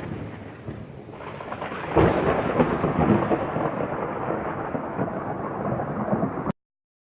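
Thunderstorm: rumbling thunder with rain, a loud thunderclap about two seconds in that rolls on, then the sound cuts off abruptly near the end.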